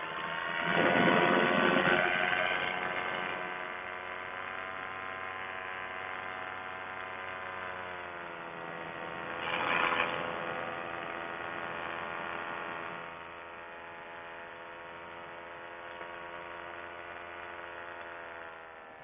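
Paramotor engine and propeller running in flight, a steady drone whose pitch dips as the throttle eases off around eight seconds in and again near the end. Two louder rushing swells, about a second in and around ten seconds in.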